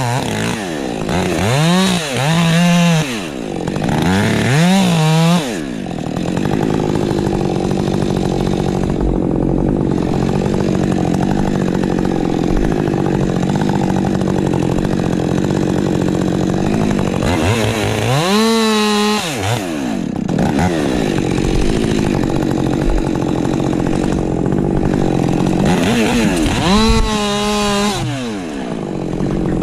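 Ported Husqvarna 550 XP Mk II two-stroke chainsaw blipped up and down several times at the start. It then runs at a steady pitch through long stretches, as it does when held in a cut, with two more quick revs up and back down later on.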